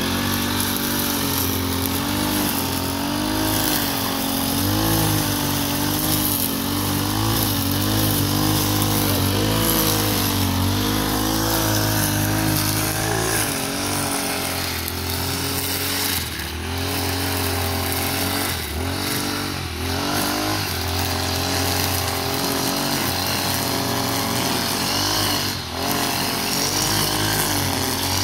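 Engine-driven brush cutter with a nylon trimmer-line head running at high speed while cutting grass, its engine pitch wavering up and down as the line meets the grass, with several brief drops in speed in the second half.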